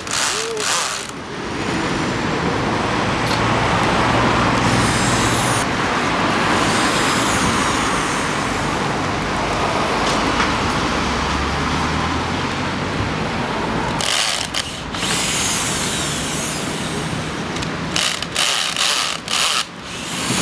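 Cordless drill working at the bike-lane edge line, unscrewing reflective road studs (cat's eyes) from the pavement, over steady street traffic. The sound breaks off and restarts several times in the last few seconds.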